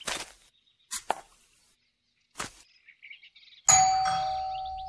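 A few short sharp clicks, then a single doorbell ding a little over three and a half seconds in, ringing on and fading over about two seconds.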